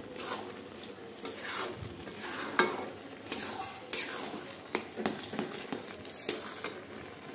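A spatula stirring and scraping thick carrot halwa around a steel kadhai, with irregular clinks of the spatula against the pan's metal every second or so.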